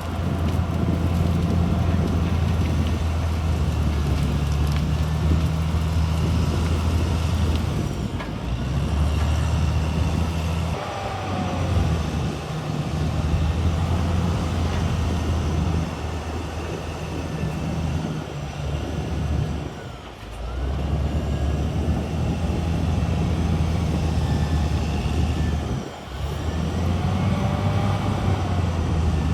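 CAT D6R XL bulldozer's diesel engine running steadily under working load, with a few brief dips in level, the deepest about two-thirds of the way through and another near the end.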